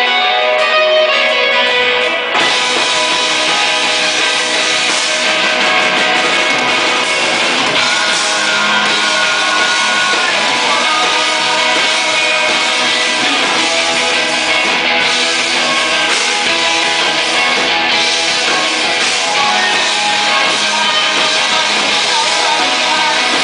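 Live rock band playing loudly: electric guitars alone at first, then about two seconds in the full band, drums included, comes in, with the guitarists singing at their microphones.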